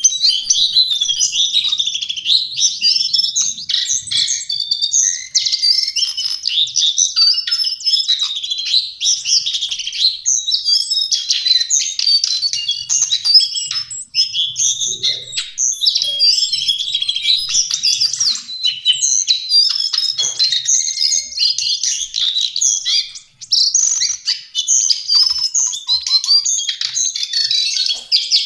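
Lesser shortwing (cingcoang coklat) singing a fast, unbroken jumble of high chirps and trills, with only a couple of brief breaks.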